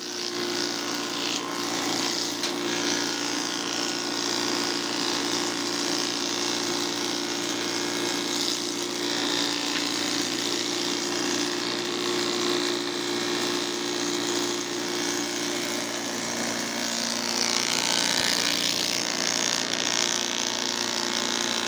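Power-fed woodworking cutter, a planing or moulding machine with a roller feeder, running continuously as it machines thin wooden strips: a steady motor hum under the noise of cutting wood. About seventeen seconds in, the hum shifts in pitch and the cutting noise grows a little louder.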